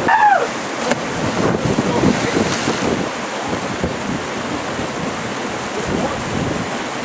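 Water splashing and churning as swimmers plunge into a rocky pool, louder in the first few seconds. A short shout comes right at the start, and wind buffets the microphone throughout.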